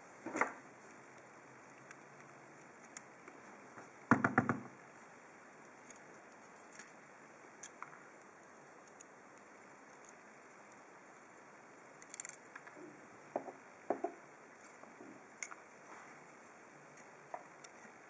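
Handling of a gutted Ruko oval lock cylinder and its parts: scattered light clicks and taps of the metal housing and plug, with a quick rattling cluster of several clicks about four seconds in.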